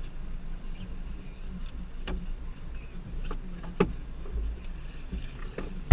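Steady low rumble of a small fishing boat on the water, with a few light knocks and clicks now and then.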